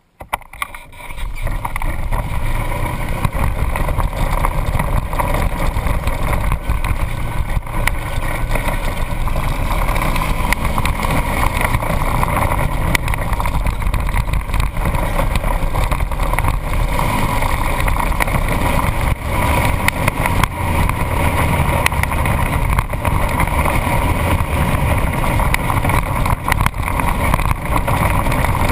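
Off-road vehicle driving along a dirt trail: engine running with tyre and road rumble and wind over the hood-mounted camera. It builds up in the first second or so, then holds steady and loud.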